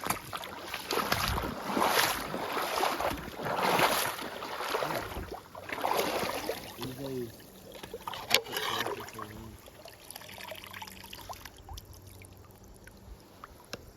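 Shallow creek water splashing and sloshing in uneven bursts as someone wades and searches for bait, growing quieter after about seven seconds. A single sharp knock about eight seconds in.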